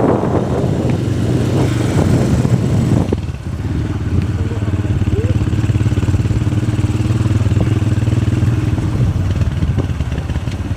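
Motorcycle engine running at a steady speed while riding, with rushing road and wind noise in the first three seconds that then eases.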